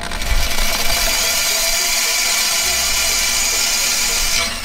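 Corded electric drill running steadily as it bores a screw hole through the wall of a flower-pot planter. It starts abruptly and stops near the end.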